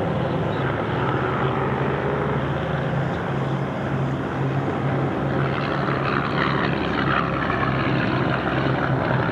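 Propeller engine of a First World War Fokker replica fighter in display flight, a steady drone with a low hum and no breaks.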